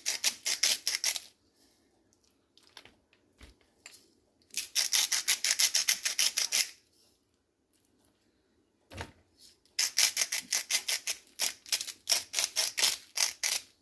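Rapid, regular crisp clicking, about nine clicks a second, in three spells of one to four seconds: salt being put onto raw steak for seasoning.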